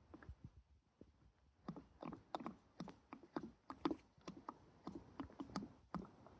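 Engine oil glugging out of a bottle as it is poured into a motorcycle engine's filler: a string of irregular gurgles and pops, starting about a second and a half in.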